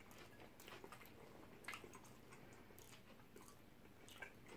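Faint chewing of shawarma wraps, with scattered soft mouth clicks and smacks.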